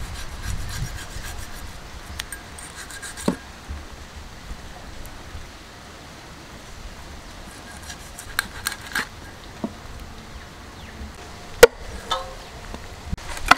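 Large knife blade scraping along a tuna's skin on a wooden chopping block, with a few small clicks. Near the end, two sharp knocks of the blade striking the wood.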